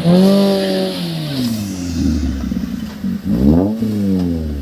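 Off-road 4x4's engine revving hard. It drops off after the opening rev, then is blipped sharply again about three seconds in and falls back.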